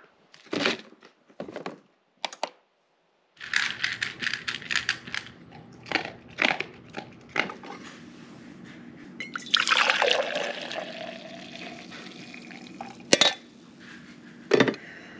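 Liquid poured into a container about ten seconds in, with a falling then rising pitch as it fills, among clinks and handling knocks over a steady low hum.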